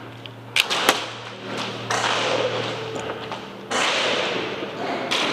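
Two sharp snaps about a third of a second apart, then a steady rustling hiss that grows louder near the end, from a player moving with his gear through an airsoft course.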